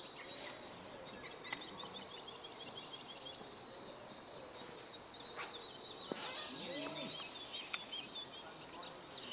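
Songbirds singing in a busy chorus of short chirps and trills over faint outdoor background noise.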